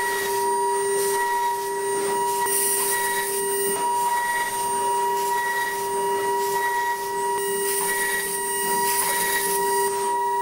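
A DATRON M8Cube CNC milling machine's 2.0 kW high-frequency spindle running with a steady high whine while a small cutter mills an aluminium front panel. A hissing cutting noise swells and fades about once a second as the head moves across the panel.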